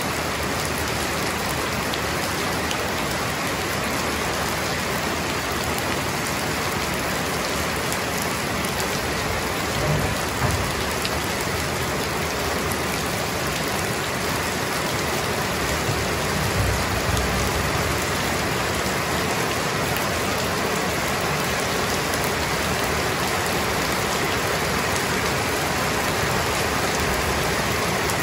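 Heavy rain pouring steadily on a paved street, a dense even hiss with no break. Two brief low thumps stand out, about a third of the way in and again a little past halfway.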